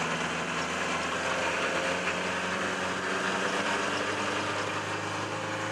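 Ford Transit van's diesel engine running at a steady speed under way, heard from inside the cab: an even drone with no change in pitch.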